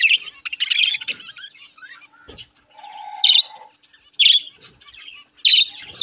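Budgerigars chattering and chirping: a burst of fast warbling chatter about half a second in, then single sharp high chirps roughly once a second.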